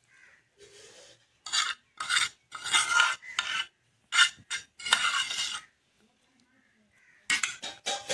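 Metal spoon scraping and stirring in a steel bowl, mixing boiled potato cubes with tomato chutney. A run of separate scrapes, a pause of about a second and a half, then a few quicker scrapes near the end.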